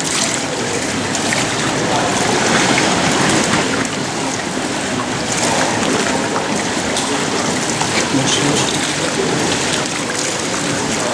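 Steady rushing and splashing of pool water, with indistinct voices in the background.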